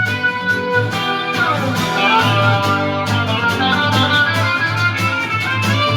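Rock music: an instrumental guitar passage with no vocals, over a low pulse and a steady beat.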